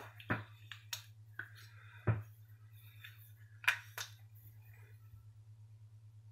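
Scattered sharp clicks and knocks of metal multitools being handled, one firmer knock about two seconds in. A low steady hum runs underneath.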